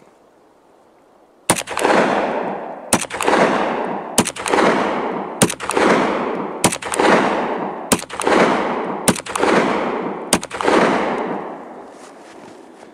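AMT Automag III pistol in .30 Carbine firing eight shots at a slow, even pace, about one every 1.2 seconds. Each sharp report is followed by a long echo that dies away before the next shot.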